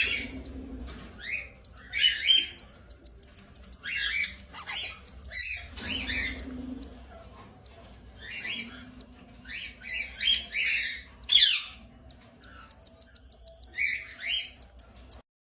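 Peach-faced lovebirds giving shrill chirps and squawks in clusters every second or two. The sound cuts off abruptly near the end.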